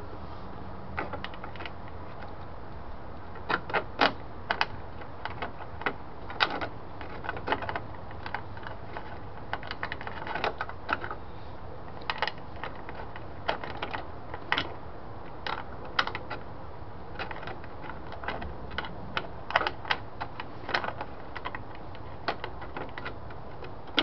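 Irregular small clicks and taps of a light-switch knob being pushed and turned against the metal switch bezel of an early-1960s Mopar dash while it is lined up onto its shaft. A steady low hum underneath.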